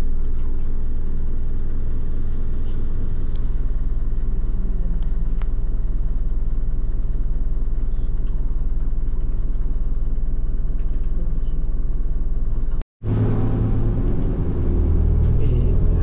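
A steady low engine rumble with an even hum. Near the end a split-second dropout breaks it, and a louder low rumble follows.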